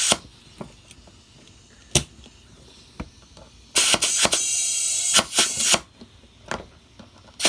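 Compressed air hissing in blasts into a hand-truck tire whose bead has come off the rim, fed in to push the bead onto the rim. One blast ends right at the start and a longer one of about two seconds, broken by short pauses, comes in the middle, with a few sharp clicks in the quieter gaps.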